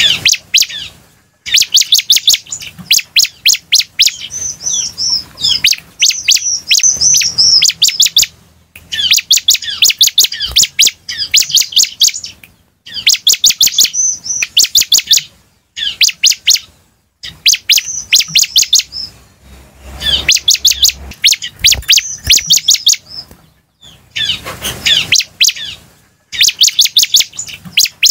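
Bar-winged prinia (ciblek) singing in repeated bursts of rapid, sharp, high notes, each burst one to three seconds long with short gaps between.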